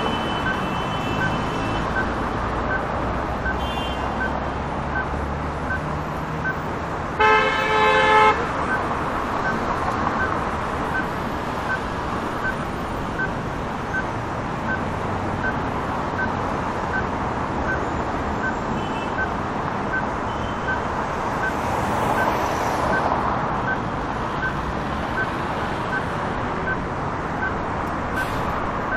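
Heavy city street traffic: a steady wash of passing cars and engines. A car horn honks loudly for about a second, about seven seconds in, with two shorter, fainter horn toots elsewhere. A light high tick repeats about twice a second throughout.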